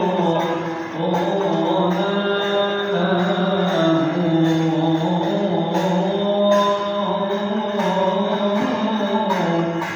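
Coptic Orthodox liturgical chant: voices singing long, slowly gliding held notes, over a light steady percussion beat.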